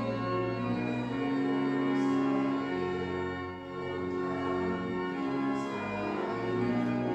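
Church organ playing slow, sustained chords, the notes changing every second or two.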